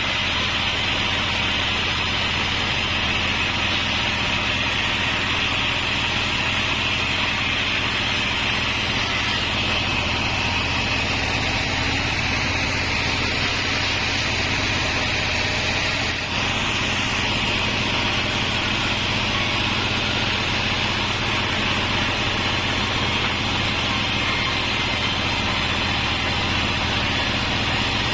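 Band sawmill (Bandsaw36) running steadily, a constant mechanical noise strongest in a high hiss, with a brief dip in level about halfway through.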